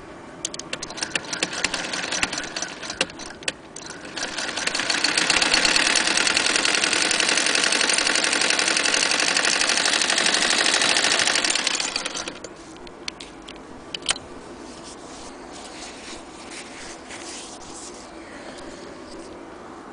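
Frister & Rossmann sewing machine turned by its hand crank: a fast, steady clatter of the needle and feed mechanism for about eight seconds, stopping about twelve seconds in. Before and after it come scattered clicks from handling the machine and fabric.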